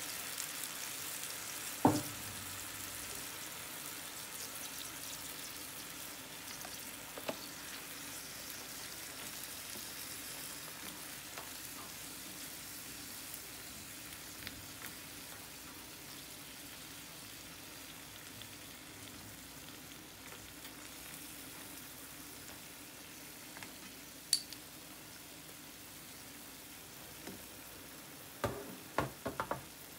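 Clam broth sizzling in a frying pan with spaghetti being tossed through it, the sizzle fading slowly. One sharp knock about two seconds in and a quick run of clicks near the end.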